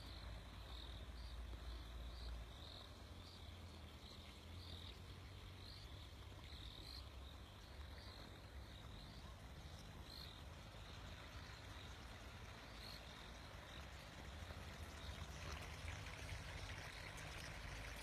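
Faint high chirps of a calling animal, repeating about twice a second over a steady low rumble. The chirps fade out about two thirds of the way through.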